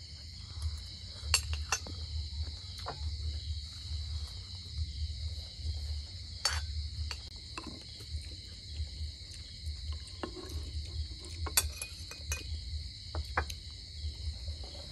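Metal spoons clinking now and then against a clay soup pot, plates and bowls, a dozen or so sharp separate clinks. A steady high insect chorus and a low irregular rumble run underneath.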